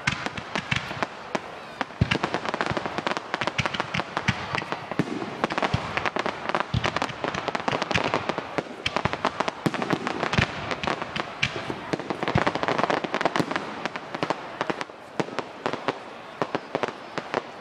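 Fireworks display: aerial shells bursting with dense, rapid popping and crackling, broken by several louder single bangs.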